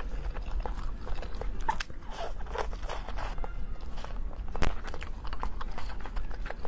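Close-up eating sounds: crunchy bites and chewing, a scatter of sharp crackles and clicks with one louder snap about four and a half seconds in, over a steady low hum.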